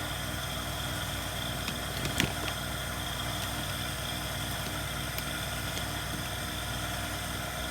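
Steady mechanical hum from a machine running in the background, with one small click about two seconds in.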